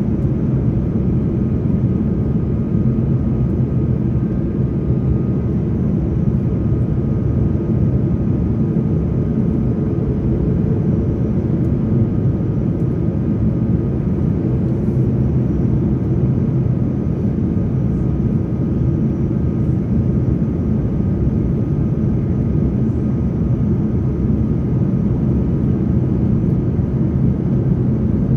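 Steady cabin noise of an Airbus A330 descending to land, heard inside the cabin beside the wing engine: a low rumble of the turbofan and rushing air, with a faint steady whine above it.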